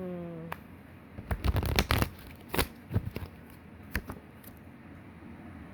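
Tarot cards being shuffled and handled by hand: a quick run of card slaps and riffles, then a last single snap.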